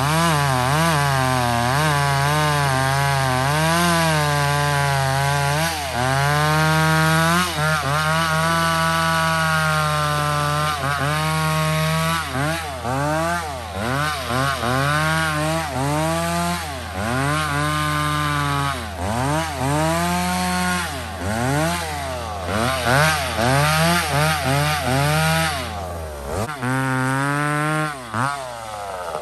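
McCulloch 850 chainsaw cutting through wood, its engine pitch dipping as the chain loads in the cut and climbing again as it revs free, over and over.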